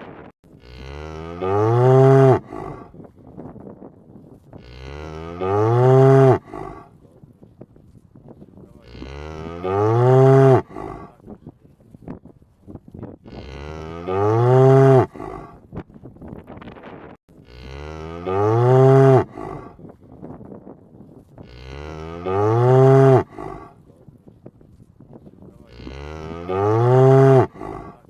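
A cow mooing seven times, about every four seconds. Each moo is a drawn-out call that rises in pitch and grows louder before cutting off sharply, and the calls are alike enough to be the same moo repeated.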